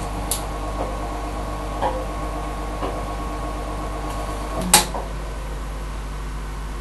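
Front-loading washing machine at the end of its cycle: a steady electrical hum with a few faint ticks. About four and a half seconds in, a loud click cuts the hum off, as the machine switches off or releases its door lock.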